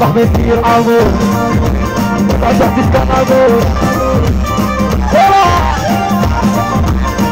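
Loud live raï music: a keyboard melody of stepped, held notes over a steady, driving drum beat.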